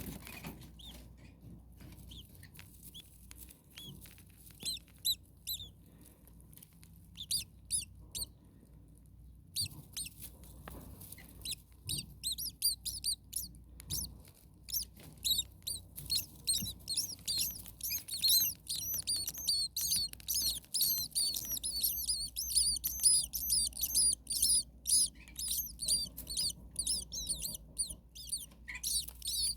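Starlings calling: scattered high chirps at first, then from about ten seconds in a dense, rapid run of high chirps.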